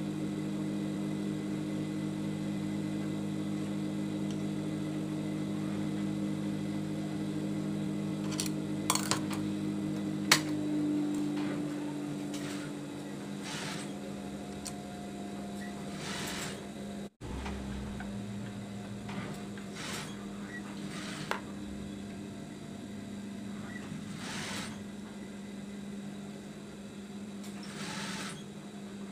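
Small metal clicks and taps of a screwdriver and screws as a replacement feed dog is fitted into an industrial sewing machine, scattered and irregular, over a steady low hum.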